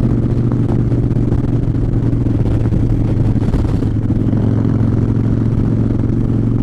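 Harley-Davidson Fat Bob's V-twin engine running at a steady cruising speed, its pitch holding level with no revving.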